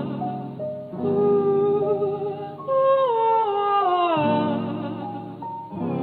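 Hip-hop beat playing with no rapping: a melodic line whose notes slide downward in phrases every few seconds, over a sustained low bass.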